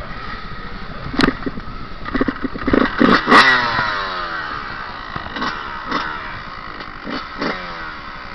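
Dirt bike engine revved in short throttle bursts, the pitch falling back after each one. Sharp knocks and clatter come about a second in and again between two and three and a half seconds in, the loudest part.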